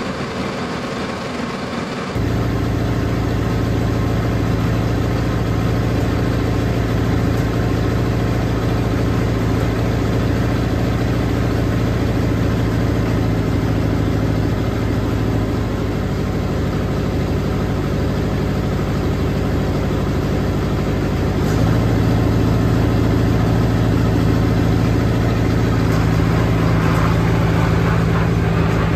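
John Deere 1010 crawler's diesel engine idling steadily while it warms up after starting. About three quarters of the way through, the engine note shifts and gets slightly louder as the engine speed picks up a little.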